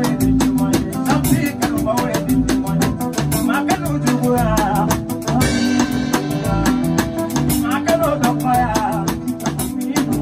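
A man singing into a microphone while strumming a nylon-string classical guitar, over a steady beat.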